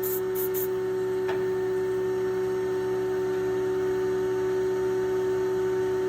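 Steady electrical hum of shop equipment holding one pitch, with two short high hisses right at the start and a faint click about a second in.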